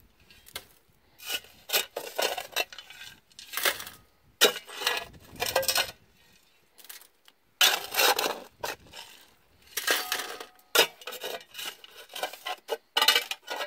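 A new Ames round-point steel shovel digging into rocky, gravelly soil: irregular scrapes and clinks as the blade is driven in and scoops stones, in several separate strokes with short pauses between.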